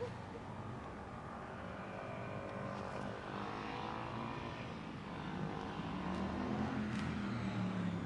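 A motor vehicle's engine running as it passes, a steady hum that grows louder toward the end.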